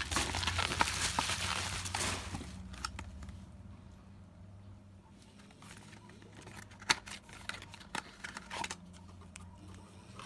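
Packaging being handled: crinkling and rustling for about the first two seconds, then scattered light clicks and taps of small items being picked up and set down.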